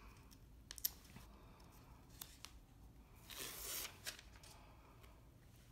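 Faint papery rustling and a few light clicks as the release paper is peeled from a fabric piece backed with fusible web. The longest rustle comes about three and a half seconds in.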